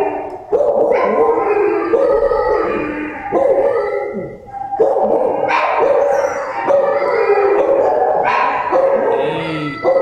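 Several kennelled shelter dogs barking and howling at once, a continuous overlapping chorus of calls that breaks off and starts again every second or so.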